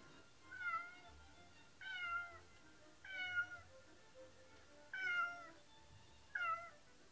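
A cat meowing five times, each call short and falling slightly in pitch, a second or two apart, over faint background music.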